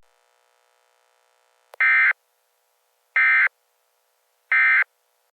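Three short bursts of EAS SAME end-of-message data tones, each about a third of a second long and a little over a second apart, signalling the end of the alert.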